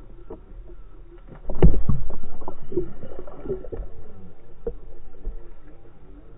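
Underwater sound picked up by a submerged camera: water movement with scattered knocks, jumping suddenly loud about a second and a half in and fading away over the next few seconds, with a smaller swell near the end.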